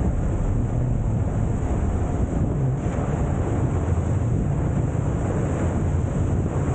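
Wind buffeting the microphone over the steady drone of a rigid inflatable boat's outboard motor at speed, with the rush of water from the hull and wake.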